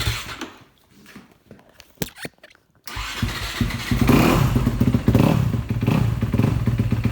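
Honda CRF250R single-cylinder four-stroke engine: it dies away just after the start, a sharp click follows about two seconds in, and the engine starts again about three seconds in and runs, getting louder about a second later.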